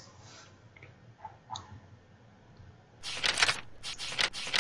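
Typing on a computer keyboard: a quick run of key clicks starting about three seconds in, after a few faint isolated clicks.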